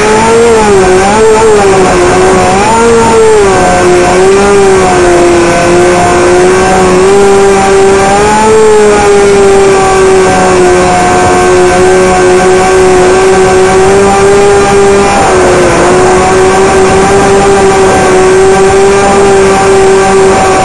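Electric motor and propeller of the Stratocam RC plane whining steadily at close range, its pitch wavering and dipping briefly with throttle, over a hiss of rushing wind.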